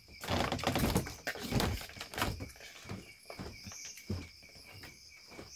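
Scattered soft knocks, clicks and rustles of people eating by hand from a shared bowl while sitting on a bamboo floor, fading towards the end. Crickets chirp steadily underneath.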